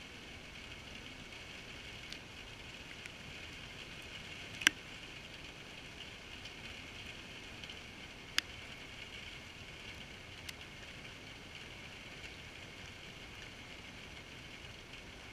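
Steady hiss of rain heard from a GoPro in its waterproof housing, with a few sharp taps of drops striking the housing, the loudest about four and a half seconds in and another about eight seconds in.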